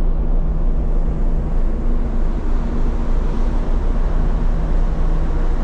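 Steady drone of a ferry's engines, a low hum that holds one pitch, under wind rumbling on the microphone on the open deck.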